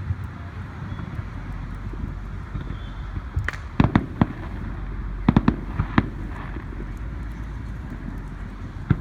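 Fireworks going off: a quick cluster of sharp cracking pops a little before four seconds in, then another cluster about a second later, over a steady outdoor rumble.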